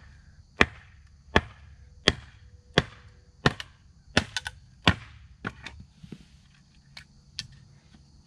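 Small hatchet chopping wood into kindling: seven sharp chops about two-thirds of a second apart, then a few lighter knocks near the end. The cheap hatchet seems sharp but, by its owner's account, just doesn't split wood.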